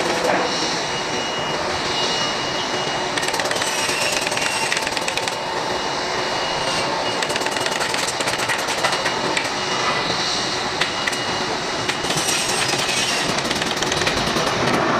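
Airbus A320 jet engines at takeoff power as the airliner accelerates down the runway and lifts off: a steady, loud rush of engine noise, a little louder near the end.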